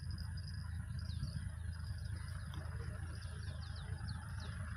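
Small birds chirping, a run of short falling chirps, over a steady low rumble. A single sharp click comes near the end.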